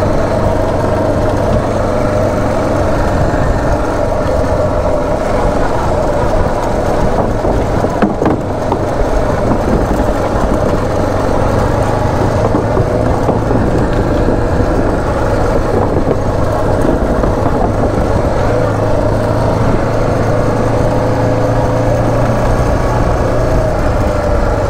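Suzuki DR motorcycle's engine running at a steady cruising pace on a dirt trail, under a heavy rumble of wind and track noise. A brief knock comes about eight seconds in.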